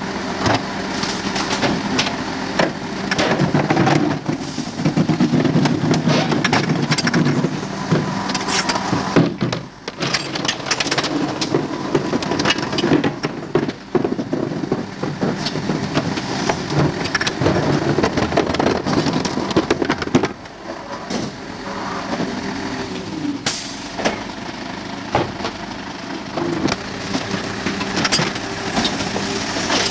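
Faun Variopress rear-loader garbage truck running at the kerb, its engine and hydraulic bin lifter giving a steady hum. Over it come repeated clanks and knocks as plastic wheelie bins are hooked onto the lifter and tipped into the hopper.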